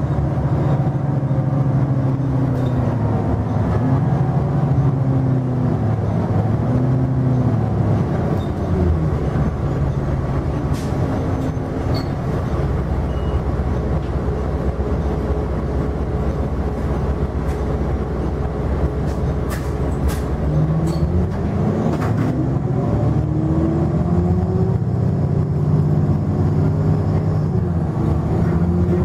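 Cummins ISL9 diesel and Allison B400R automatic transmission of a Nova Bus LFS, heard from inside the passenger cabin. The engine and driveline note drops about eight seconds in, holds low through the middle, then climbs steadily from about twenty seconds in as the bus picks up speed, with a few light rattles from the body along the way.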